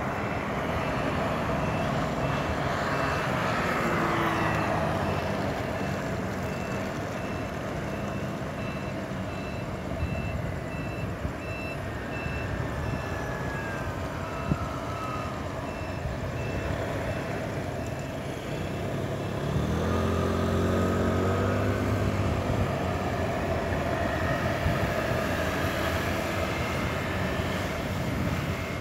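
Road traffic at a busy intersection: a steady hum of passing vehicles. A row of evenly spaced short high beeps runs through the first half, and about twenty seconds in an engine revs up as a vehicle pulls away.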